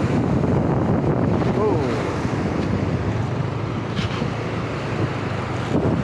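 Heavy wind buffeting the microphone of a moving motor scooter, over the steady rush of big surf breaking beside the road.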